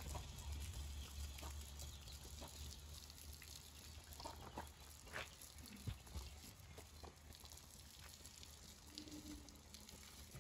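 Faint patter and splashing of water from a garden hose running over a horse's legs and onto the wet ground, with scattered small drips and ticks: the legs being cooled down with water after a run.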